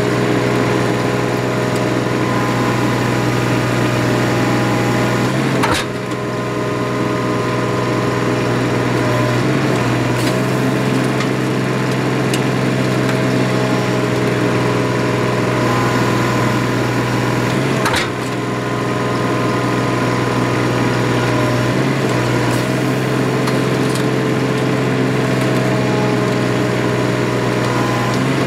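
Hydraulic pipe-pulling rig of a trenchless sewer replacement running steadily under its engine-driven hydraulic power, a constant mechanical drone. A sharp click and a brief drop in level come twice, about six and eighteen seconds in.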